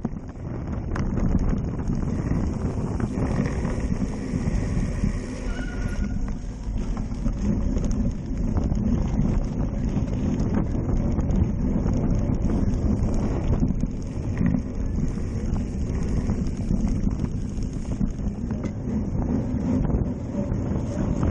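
Wind buffeting the microphone of a handlebar-mounted camera on a cyclocross bike at race speed, over the steady clatter and rattle of the bike and its tyres on rough dirt trail.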